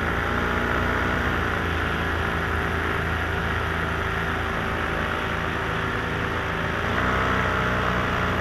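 Small aircraft engine running steadily at cruise, with wind rushing past the camera; its pitch and level rise slightly about seven seconds in.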